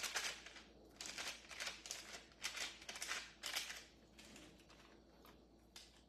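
Metal fork scraping and pressing a raw ground-chicken crust mixture thin over parchment paper on a baking tray: faint, repeated scraping strokes with a little paper crinkle, about two a second, growing quieter after about four seconds.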